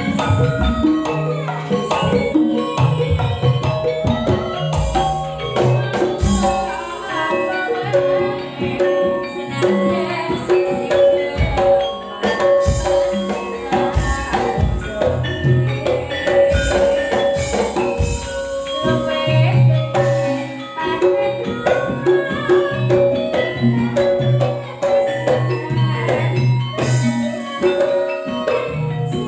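Campursari music played by an ensemble: a dense, rhythmic texture of tuned metal percussion and drums over a steady bass line, with no clear singing.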